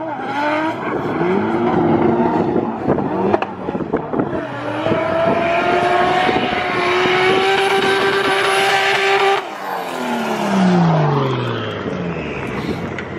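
Drift cars' engines revving hard while the tyres squeal through a slide; one engine is held at high revs for several seconds. Near the end an engine note falls steadily as a car passes and backs off.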